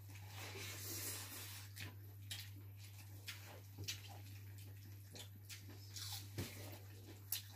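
Faint wet chewing, lip-smacking and fingers working through chicken and rice in gravy as several people eat by hand, with scattered small clicks and smacks over a steady low hum.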